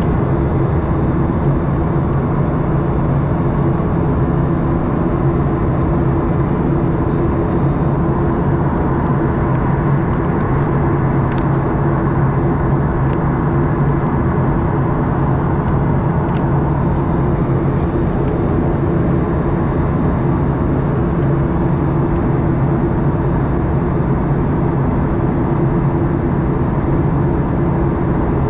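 Boeing 737-800's CFM56-7B jet engines running steadily, heard inside the passenger cabin as a constant rushing roar with a low steady hum under it. A couple of faint ticks about a third and halfway through.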